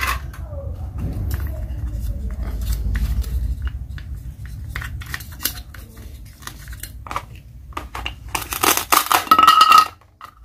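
Plastic toy food pieces, a plastic knife and a plastic cutting board clicking and tapping as they are handled. Near the end comes a loud rasping rip that stops suddenly: the hook-and-loop fastener letting go as the toy pumpkin's halves are cut apart with the plastic knife.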